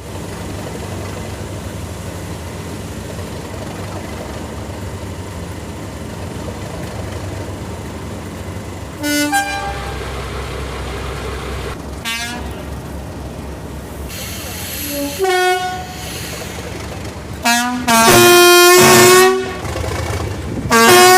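Diesel locomotive horns sounding over the steady low rumble of an idling diesel engine: short blasts about 9, 12 and 15 seconds in, the later ones stepping between two notes, then a long, loud multi-note blast around 18 seconds, and another short blast right at the end.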